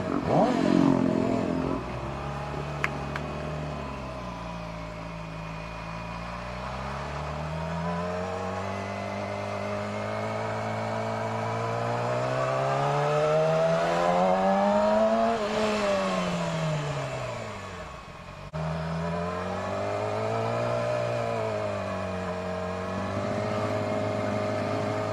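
Yamaha R6 inline-four engine running under the rider, its pitch climbing slowly to a peak about fifteen seconds in and falling away again, then a shorter rise and fall near the end.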